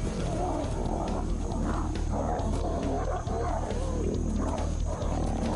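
Two male lions growling and snarling at each other as they fight, over a steady low music bed.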